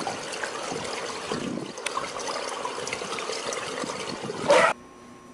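Swimming-pool water sloshing and splashing, with a short, much louder burst about four and a half seconds in that cuts off suddenly.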